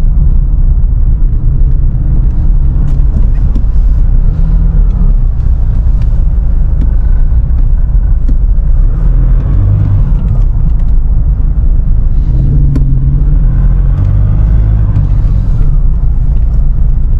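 Steady low road-and-engine rumble inside a Nissan Navara pickup's cabin while it drives slowly in traffic, with a few light ticks.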